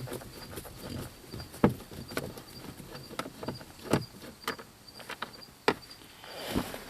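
Scattered light clicks and taps of a screw being backed out of a plastic lower dash panel under a car's steering column, a few of them sharper. A faint, steady high-pitched chirping sits in the background.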